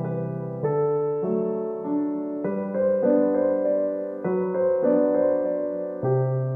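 Background piano music: a gentle melody over chords, the notes changing about every half second.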